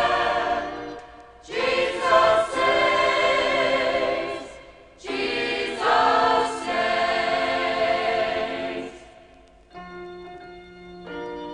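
A choir singing a gospel hymn in phrases, with brief breaths between them. Near the end the singing stops and steady held instrumental chords take over.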